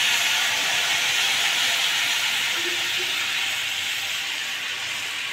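Hot water poured into semolina roasted golden in ghee in an iron kadhai, hissing and sizzling hard as it hits the hot fat; the hiss eases off gradually. This is the water being added to the roasted suji when making sooji halwa.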